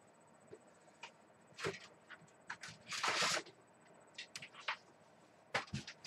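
A computer keyboard being handled and its keys pressed: a dozen or so scattered clicks and knocks at an irregular pace, with a short rustle about three seconds in.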